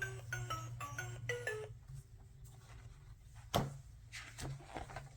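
Electronic tune from a children's sound book's button speaker: a quick run of short pitched notes, about three a second, over a low hum, stopping about a second and a half in. A sharp click follows a couple of seconds later.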